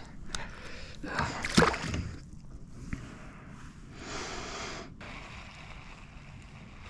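Water sloshing and splashing against a fishing kayak in a few short bursts, with a light knock about a second and a half in.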